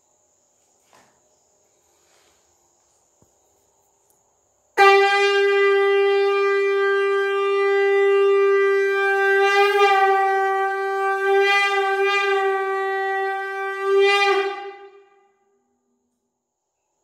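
Conch shell (shankh) blown for the aarti in one long, steady note of about ten seconds. It starts sharply about five seconds in, wavers slightly midway and dies away near the end.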